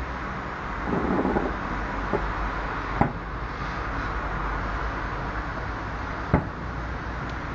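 Fireworks bursting in the distance: two sharp bangs, about three seconds in and again a little past six, with a fainter pop near the end, over a steady wash of outdoor background noise.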